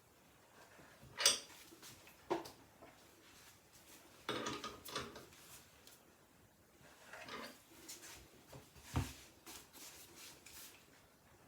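Scattered clinks and knocks of metal being handled as the wood chuck on a lathe is tightened onto the workpiece, with the lathe stopped. The loudest knocks come about a second in and about nine seconds in, with a short cluster of clatter around four to five seconds.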